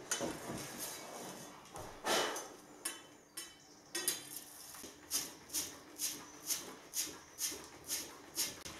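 A copper pipe deburring and cleaning tool being twisted on the cut end of a copper pipe, scraping off the burr. There are a few irregular scrapes at first, then a steady run of about two strokes a second from about halfway through.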